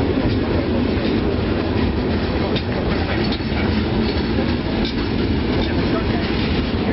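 Freight cars of a long freight train rolling past: a steady heavy rumble of steel wheels on the rails, with irregular clicks as the wheels pass over rail joints.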